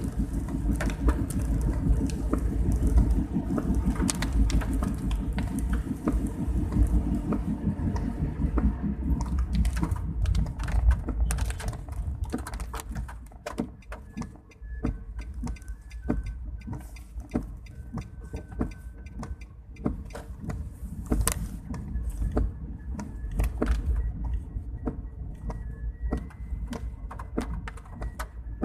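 A vehicle driving through heavy rain: a low road-and-engine rumble with many scattered raindrop ticks. The rumble falls away about halfway through as the vehicle slows, leaving mainly the rain ticks.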